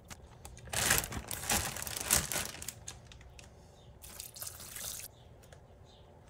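Plastic zip-top bag crinkling and rustling while red wine is poured from a measuring cup into it over cubed raw beef. The crinkling is densest and loudest in the first half, with softer rustles and liquid sounds later.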